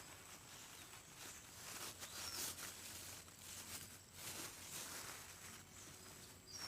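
Quiet outdoor ambience: soft rustling and handling noises, with a faint bird chirp about two seconds in.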